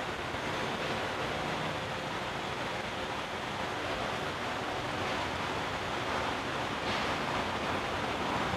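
Scissor car lift lowering, with a steady, even hiss that grows a little louder about seven seconds in.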